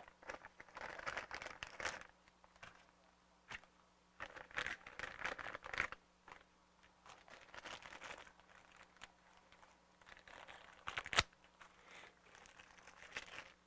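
Handling and opening a new, still-sealed plastic bottle of Traxxas 30K differential oil: irregular crinkling, tearing and scraping of plastic, with one sharp click about 11 seconds in.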